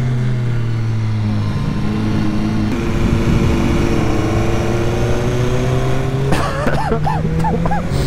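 Motorcycle engine running under way, heard with wind rush on the rider's microphone. The engine note holds at low revs, then rises slowly as the bike gathers speed. A person's voice comes in over it for the last couple of seconds.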